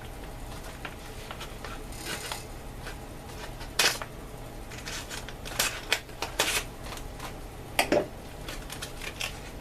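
A knife cutting open a plastic MRE food pouch, with the packaging crinkling and about half a dozen sharp clicks and crackles spread through.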